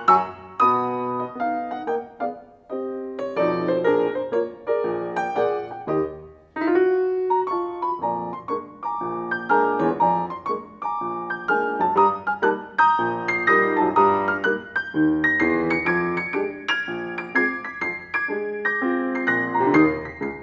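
Grand piano played solo, a rag in a live concert hall: dense chords and melody notes with a brief break a little over six seconds in.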